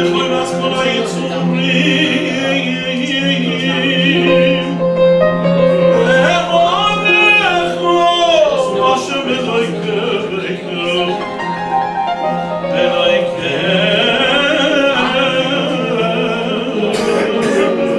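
A man sings a Hebrew liturgical song with a wavering vibrato, accompanied by a grand piano.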